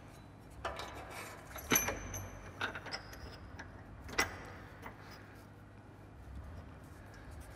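A handful of light metallic clinks and taps as an alignment dowel and its bolt are worked into the rear subframe mount by hand, the loudest about two seconds in and the last a little past four seconds; only a faint hum follows.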